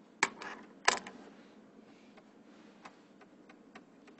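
Stylus tapping and writing on a tablet screen: two sharp knocks in the first second, then scattered faint light ticks as the pen strokes the screen.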